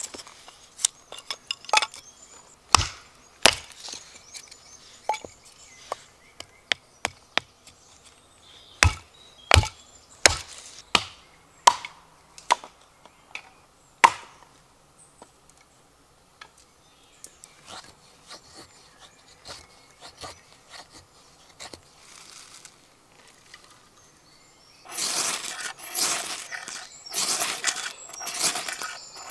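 Hatchet splitting kindling on a wooden stump, with sharp, irregular knocks about a second apart that thin out about halfway through. Near the end, a ferrocerium rod is struck about four times onto a pile of wood shavings, each strike a harsh scrape.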